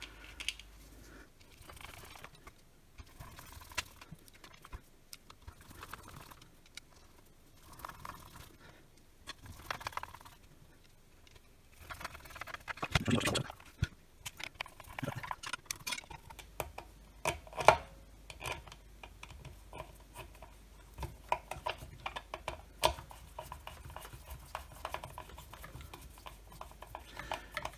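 Hands handling and fitting the plastic housing, motor and wiring of a cordless circular saw: scattered light clicks, taps and rustles of plastic and metal parts, with a louder clatter about 13 seconds in and a sharp click a few seconds later.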